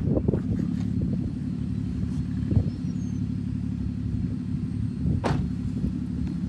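Car engine idling with a steady low hum, with a dull thump about two and a half seconds in and a sharp click a little after five seconds.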